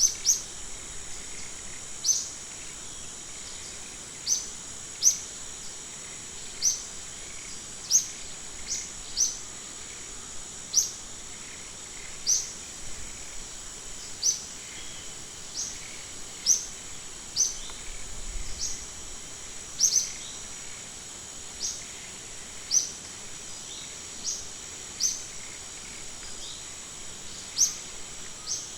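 Natural ambience: a steady, high-pitched insect drone, over which a bird gives short, sharp, high chirps at irregular intervals, roughly once every one to two seconds.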